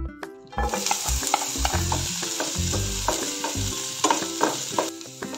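Chopped onion, tomato and cabbage sizzling in hot oil in a non-stick frying pan while being stirred with a spatula. The sizzle starts about half a second in, with the spatula knocking and scraping on the pan throughout.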